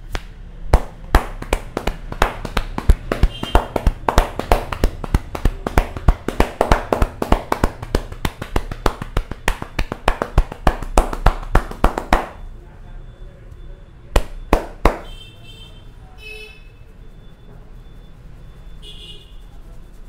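Barber's hands striking a man's scalp in quick rhythmic percussive tapping during a head massage, several strikes a second. The tapping stops about twelve seconds in, then two more strikes follow a couple of seconds later.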